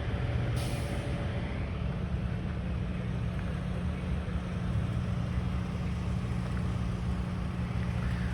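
A large engine idling steadily, a low even hum, with a short hiss about half a second in.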